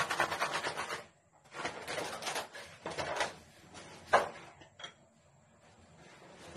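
Things being handled: clattering and rustling, then one sharp knock just after four seconds and a small click.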